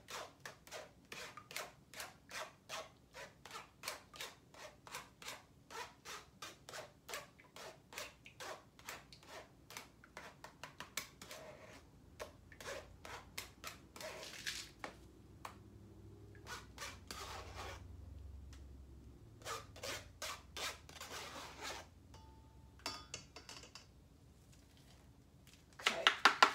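A spoon scraping and pressing cucumber pulp against a fine mesh strainer to force the juice through, in regular strokes about twice a second with a couple of pauses. A louder clatter of kitchenware comes near the end.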